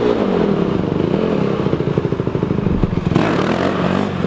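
Dirt bike engine revved up and down again and again, the rider blipping the throttle to try to lift the front wheel into a wheelie.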